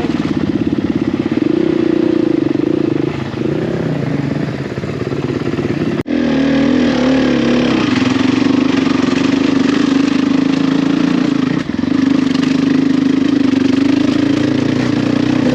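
Enduro motorcycle engine running while riding, its pitch shifting with the throttle. The sound breaks off abruptly about six seconds in and comes back at a steadier, lower pitch.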